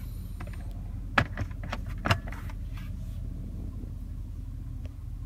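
Steady low hum inside a car cabin, with a few sharp clicks and knocks about one and two seconds in as a handheld remote and the glove box are handled.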